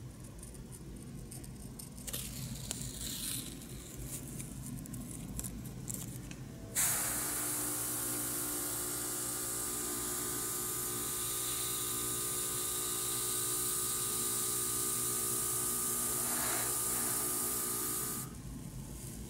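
Faint scratching of a hobby knife cutting masking tape, then about seven seconds in an airbrush starts spraying paint: a loud, steady hiss of air with a steady hum under it, lasting about eleven seconds and cutting off suddenly near the end.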